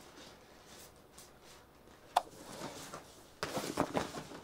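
Clear plastic bag around a life raft crinkling and rustling as it is handled, with one sharp tick about two seconds in and a burst of crackling over the last second.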